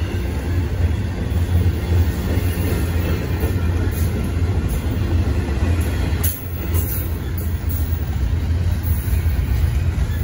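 Double-stack container train rolling past at close range: a steady low rumble of steel wheels on rail, with a brief dip a little past halfway as a gap between cars goes by.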